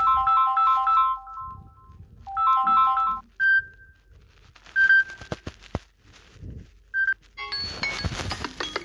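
Samsung Galaxy A40 phone ringtones. A bright electronic chime of three notes repeats, breaks off, plays once more and stops about three seconds in. Then come a few short single beeps and clicks, and about seven and a half seconds in a different, busier ringtone melody starts.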